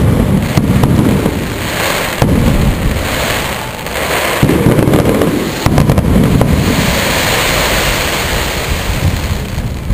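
Aerial firework shells bursting: a run of deep booms every second or two, with sharp cracks between them, and a crackling hiss over the last few seconds.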